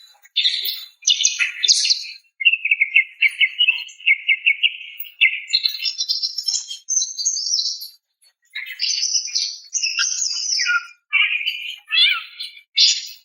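A female greater green leafbird (cucak ijo) calling to a male: bursts of rapid, high chirping and a fast trill of even notes, with a brief pause a little past the middle.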